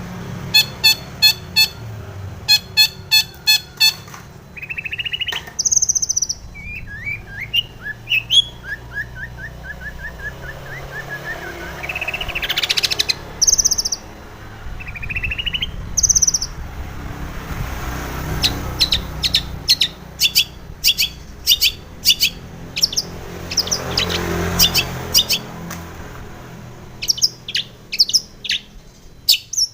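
Long-tailed shrike singing a varied song: rapid series of sharp repeated chips, short whistled phrases and a fast trill, with harsher notes mixed in.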